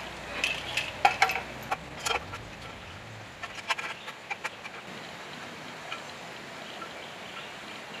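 Light metallic clicks and rattles of a sheet-metal gauge panel and its wiring being handled and fitted to the generator's engine, mostly in the first half, then only a few faint ticks.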